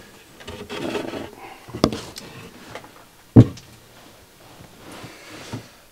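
Handling noises at a wall of electrical gear: some rustling near the start, a click about two seconds in, then one sharp, loud knock about three and a half seconds in, and a few faint ticks after it.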